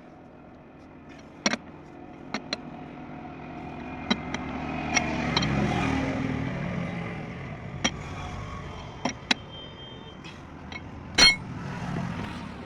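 A motor vehicle passing: its engine and road noise build to their loudest about halfway through, then ease off. Sharp metallic clinks and knocks are scattered throughout, the loudest near the end.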